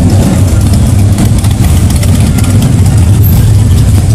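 Cruiser motorcycles rolling slowly past with a loud, low, steady exhaust note.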